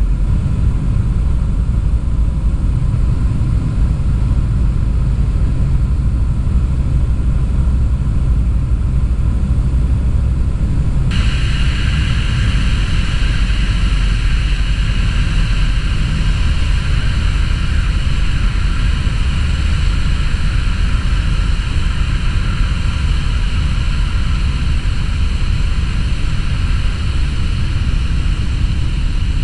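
Steady cockpit noise of a Skyranger microlight's engine, propeller and rushing air on final approach and landing, a low drone under a constant hiss. About eleven seconds in the hiss abruptly gets stronger and stays so.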